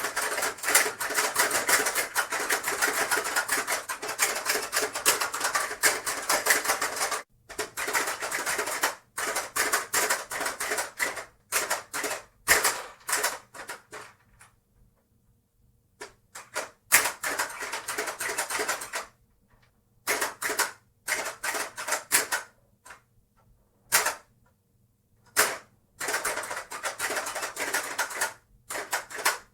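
Hungry Hungry Hippos board game being played: rapid clacking of the plastic hippos' levers and snapping jaws. The clacking runs continuously for the first seven seconds or so, then comes in shorter flurries broken by brief pauses, with the longest pause about halfway through.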